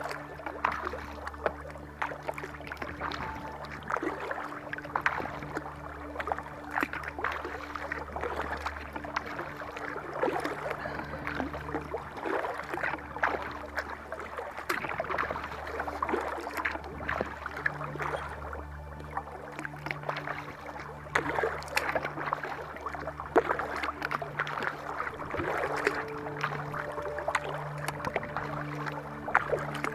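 Kayak paddling: irregular splashes and drips of water as the paddle blades dip and lift. Soft background music with sustained low notes plays beneath, its notes changing every few seconds.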